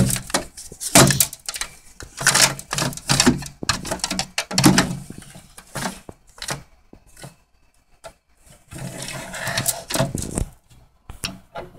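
Irregular light knocks, taps and rustling from a plastic model horse being handled and bumped against a toy horse trailer and its ramp, quieter for a couple of seconds past the middle.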